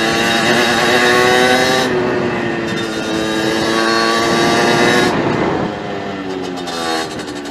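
50cc motorbike engine running steadily at a fairly high pitch, then easing off and dropping in pitch about five seconds in.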